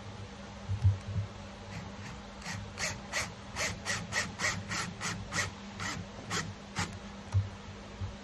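Cordless drill driving a screw through a metal bushing into the wooden neck joint of a phin, heard as a run of short, sharp clicks about three a second, after a couple of dull knocks.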